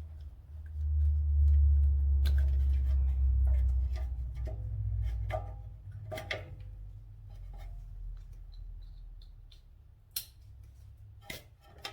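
A low rumble for the first few seconds, then scattered sharp clicks and small clinks of motorcycle parts and fasteners being handled while the bodywork is taken off.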